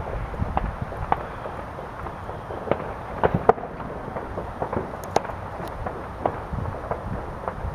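Fireworks going off: a scatter of sharp bangs and pops at irregular intervals over a low rumble, the loudest a couple of close reports about three and a half seconds in.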